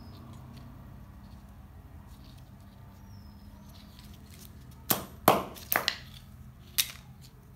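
Small parts of a dismantled TV antenna booster being handled: a few light clicks, then five sharp clicks and knocks in quick succession about two-thirds of the way in, as the small transformer and its wired circuit board are turned over in the hand.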